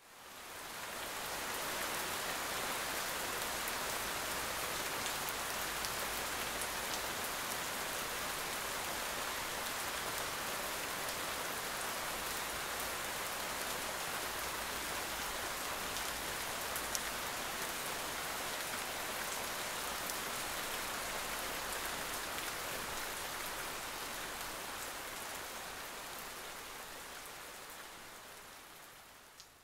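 Steady rain falling: an even, dense hiss that fades in over the first couple of seconds and fades away near the end.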